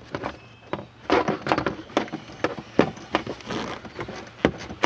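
Ratchet with a T50 Torx bit loosening a seatbelt anchor bolt: a series of uneven clicks and knocks.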